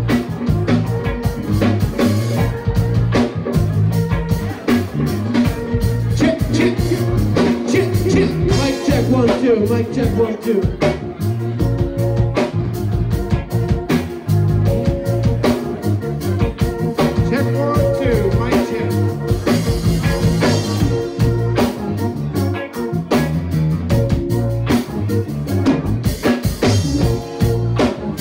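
Live rock band playing a jam on electric guitars, bass guitar and drum kit, loud, with a steady driving beat.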